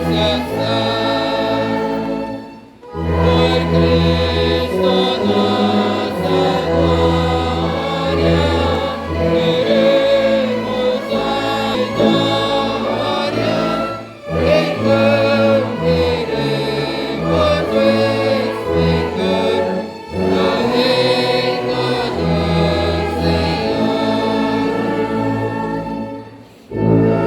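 Hymn sung by many voices with instrumental accompaniment, a tuba holding long low bass notes under the singing. The music breaks off briefly between phrases several times.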